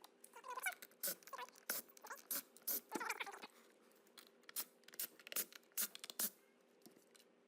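Irregular small clicks, taps and squeaky scrapes of tools and hard plastic and metal parts being handled while an electric chainsaw's plastic housing is taken apart. They stop about six seconds in.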